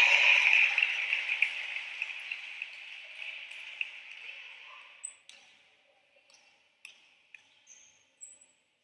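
Noise in a sports hall fading away over the first five seconds. Then near quiet with a few isolated sharp knocks, a basketball bounced on the hardwood court before a free throw.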